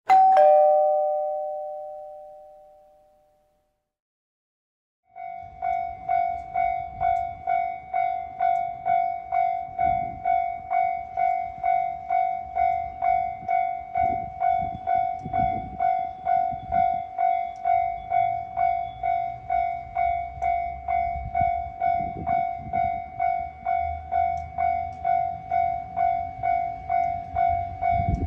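A bright chime rings once and fades out. After a short gap, a Japanese level crossing's electronic warning bell starts clanging steadily, about two strikes a second.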